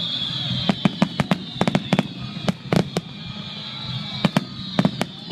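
Fireworks going off: an irregular string of sharp cracks coming in quick runs, over a steady high whistle that falls slightly in pitch.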